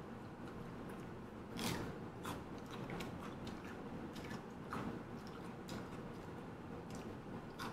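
A person chewing banh xeo and lettuce, close to the microphone, with a few soft, scattered crunches; the loudest comes about a second and a half in.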